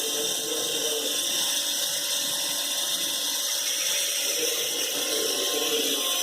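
Wire EDM machine cutting: a steady high hiss of the dielectric water flushing the cut as the wire sparks through the workpiece.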